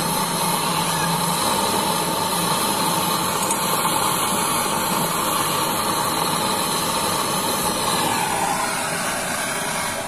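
Gas brazing torch flame burning with a steady hiss while brazing a copper refrigerant pipe joint at a refrigerator compressor.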